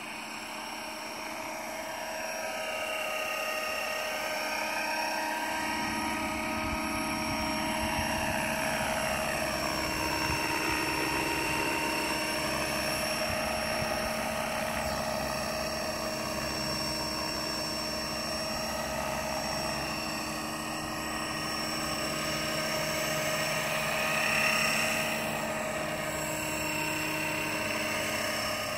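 500-size electric RC model helicopter flying low passes: a steady whine from the motor and gears over the whirr of the rotor blades, the tone sweeping down and back up as it passes back and forth. A lower rotor rumble comes in about five seconds in, and the sound is loudest around 24 seconds in.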